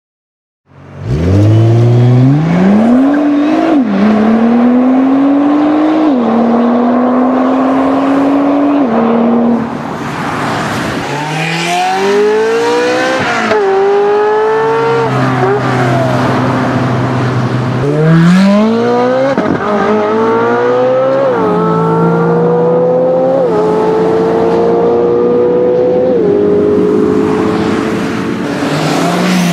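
Ferrari F355's V8 accelerating hard through the gears, starting about a second in. The pitch climbs in each gear and drops sharply at each upshift, over three or four separate hard pulls.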